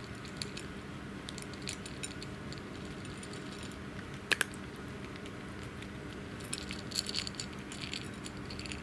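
Small hard pieces of dry pet food clicking and rattling in a dish as an animal picks through them, with one sharper click about four seconds in and a flurry of clicks near the end.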